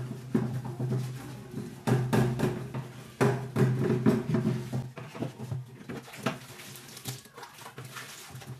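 Dishes, glass and plastic clinking and knocking during hand-washing at a kitchen sink, with many short sharp clinks, over background music.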